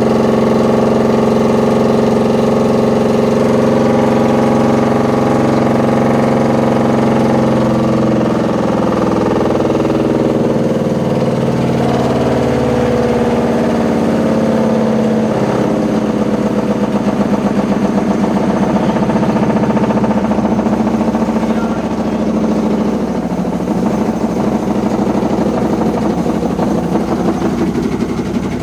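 Noisy washing machine running with a loud, continuous mechanical hum of several tones, sounding like a load of bricks inside. Its pitch shifts about a third of the way in, and a fast pulsing sets in just past halfway.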